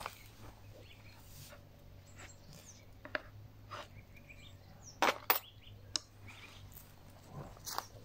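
A 1950s Coricama Italian army slip-joint pocket knife being handled and its stiff can-opener tool pried open, giving a few short sharp clicks, the loudest two close together about five seconds in.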